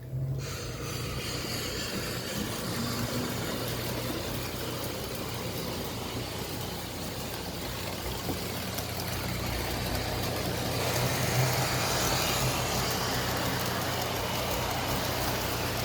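Bachmann G scale 4-6-0 model steam locomotive running with its onboard sound on: a steady hiss over a constant low hum from the locomotive and its wheels on the track, starting abruptly and growing a little louder about ten seconds in.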